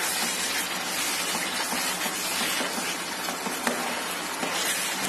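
Thick fig and sugar mixture sizzling and bubbling in a frying pan as it is stirred with a wooden spoon, with a few light clicks of the spoon. The mixture is nearly done, cooking down its last minute or two.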